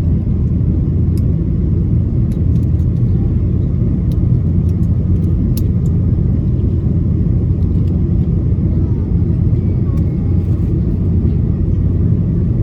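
Steady cabin rumble of an Airbus A330-300 on approach, heard from inside the cabin: the low drone of its Rolls-Royce Trent 700 engines and the rush of air, with a few faint ticks.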